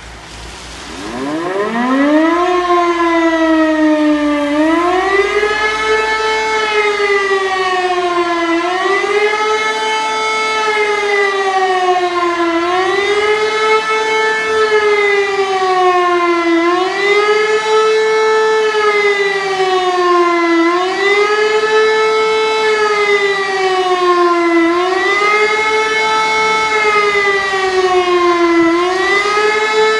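Civil defence siren sounding the German 'Warnung der Bevölkerung' public-warning signal in a siren test. It winds up from a low pitch about a second in, then wails, rising and falling about every four seconds.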